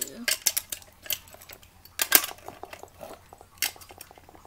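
Toy car hauler and toy cars being handled and knocked together: a string of sharp clicks and clacks, the loudest about two seconds in.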